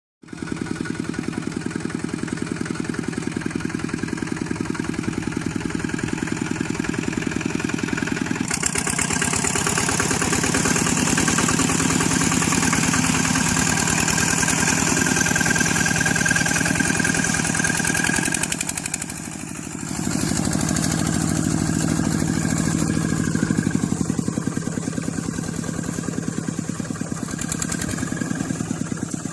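Small engine running steadily, louder and harsher from about eight seconds in, with a brief dip in level around twenty seconds.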